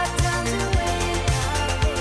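Background music with a steady beat: a kick drum about twice a second under a bass line and melody notes.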